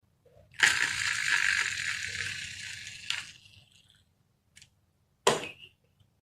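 Marbles rolling down a marble-run track: a rolling rattle starts sharply about half a second in and fades over about two and a half seconds. Near the end come a light click and then a sharper clack.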